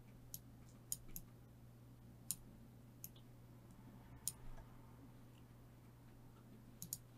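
Scattered computer mouse clicks, about eight of them with a quick pair near the end, over a faint steady low hum.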